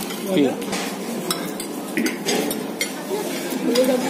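Spoons and forks clinking and scraping on ceramic plates as several people eat at a table, in scattered irregular clinks, with murmured chatter in the background.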